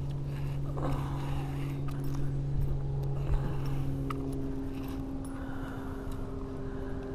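Steady hum of a distant engine over a low rumble, its note shifting about four seconds in.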